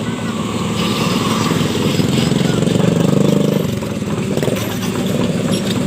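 Excavator's diesel engine running as it passes, swelling about two seconds in and easing off after about three and a half seconds.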